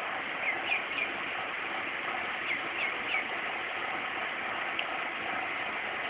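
Duckling peeping: short, high, falling chirps in small groups, three near the start, three more around the middle and one later, over a steady hiss.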